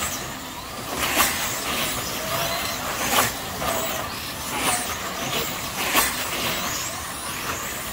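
Electric slot cars with truck bodies racing on a multi-lane track: a steady whirr of small motors running around the lanes, with sharp loud passes as cars come close by about a second in, at about three seconds and at about six seconds.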